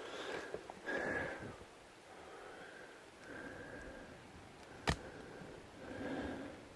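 A person breathing and sniffing close to the microphone in soft, recurring breaths, with one sharp click about five seconds in.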